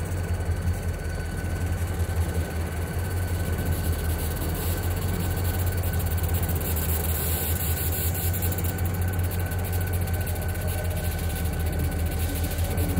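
Pair of diesel-electric locomotives running at low throttle as they creep along, a steady low engine rumble with a faint steady high tone above it.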